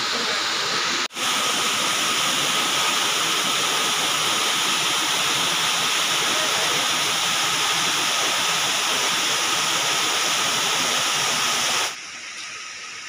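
Elephant Falls, a waterfall cascading down rock tiers, making a steady loud rush of water. The rush breaks off for an instant about a second in, then drops to a much quieter hiss near the end.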